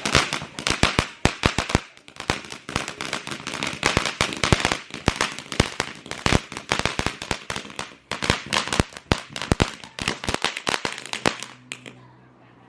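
A rapid, crackling string of fireworks goes off, many sharp cracks a second. The cracks thin out and stop about eleven seconds in.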